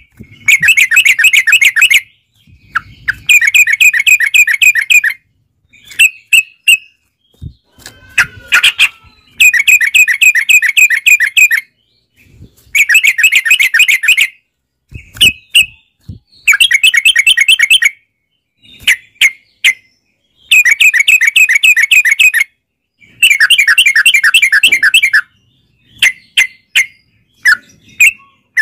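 Yellow-vented bulbul (trucukan) song: loud rolling runs of rapid, bubbly notes lasting about two seconds each, repeated about seven times with short single chirps in the gaps between.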